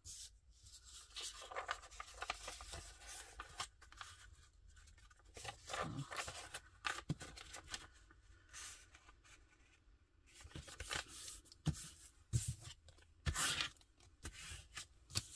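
Paper rustling and crackling as a loose old book page is handled, folded and creased by hand, in short irregular bursts with scattered sharp crackles.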